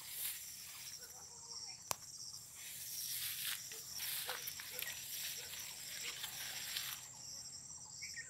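Leaves, vines and grass rustling and brushing as someone pushes through dense vegetable vines on bamboo trellises, with footsteps. A steady high whine runs underneath, and a single sharp click comes about two seconds in.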